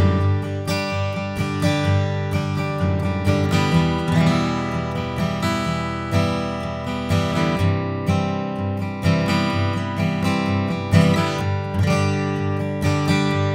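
Gibson Hummingbird Sustainable acoustic dreadnought guitar, with walnut back and sides, played unplugged: chords strummed over and over, each stroke ringing on into the next.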